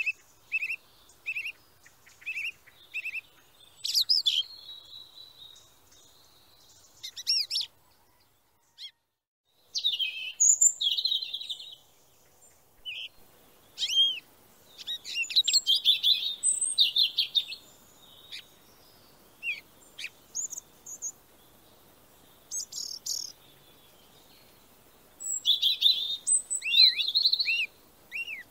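Short high bird chirps at first. After a brief silent break about nine seconds in, a brood of young ducklings peeps in quick bursts of short, arched calls.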